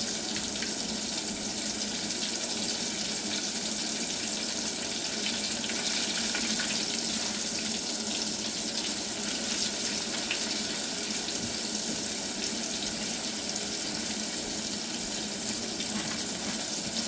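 Batter-coated pickle slices frying in hot oil: a steady sizzle with faint crackles.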